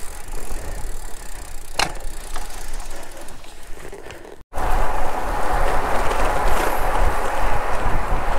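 Road bicycle being ridden: tyre and wind noise with a sharp click about two seconds in, growing quieter. About halfway it cuts off and gives way to a louder, steady rush of tyres on asphalt and wind.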